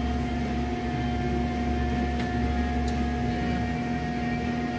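Steady machine hum with a constant mid-pitched tone over a low rumble, with two faint clicks around two and three seconds in.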